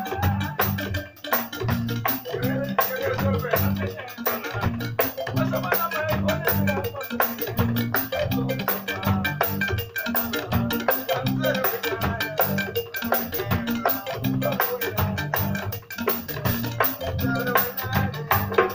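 Live band playing: a drum kit keeps a busy, even rhythm with cymbals over a pulsing electric bass line, with a higher melodic part wandering on top.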